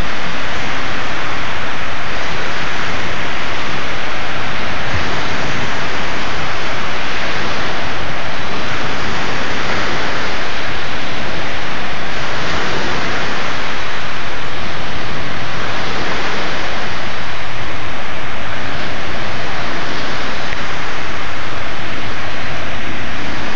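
Small waves washing onto the shore, a steady loud hiss of surf that swells and eases every few seconds.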